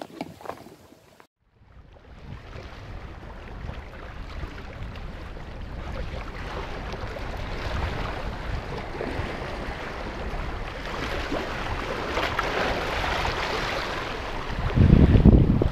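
Wind buffeting the camera's microphone as a steady rumble over the hiss of choppy sea water against the rocks. The wind gets stronger about a second before the end.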